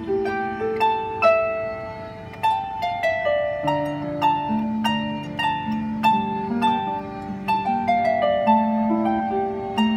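Celtic harp played solo: a melody of plucked notes ringing in the upper strings over slower, held bass notes, each note struck sharply and left to ring.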